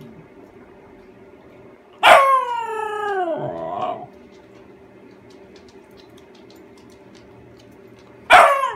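Husky howling: one long call starting suddenly about two seconds in and sliding down in pitch for about two seconds, then a second howl beginning near the end.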